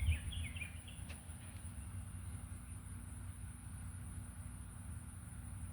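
Steady high-pitched insect trilling, with a few faint bird chirps in the first second and a steady low rumble underneath.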